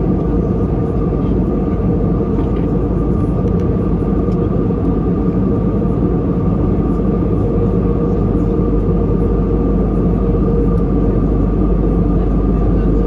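Steady cabin noise inside an Airbus A321: a low rumble with a constant whine on top, growing slightly louder.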